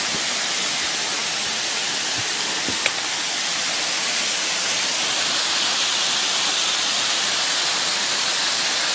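Waterfall rushing steadily, a constant hiss of falling water. A single small click about three seconds in.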